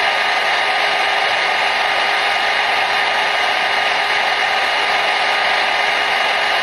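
Hair dryer running steadily: an even, unchanging rush of air with a faint steady whine in it.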